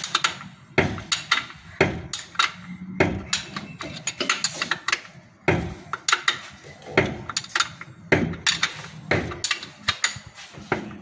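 Metal hand tools clicking and clanking on an engine as a wrench works a bolt: irregular sharp metallic knocks, several a second in short clusters.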